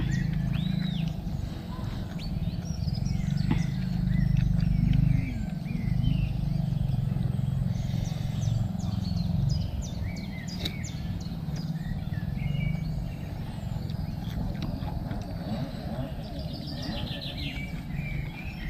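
Small birds chirping repeatedly over a low rumble that is heaviest in the first half and then eases. Close-up eating sounds come through as a person chews juicy fruit: soft clicks and smacks.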